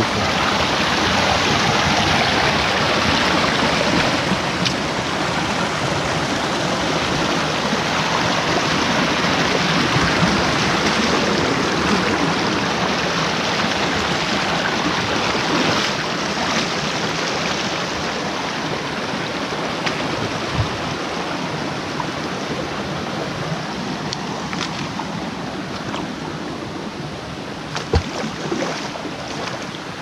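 Shallow forest stream running and splashing over rocks in a small cascade, a steady close rush of water that eases slightly toward the end. A single sharp knock comes near the end.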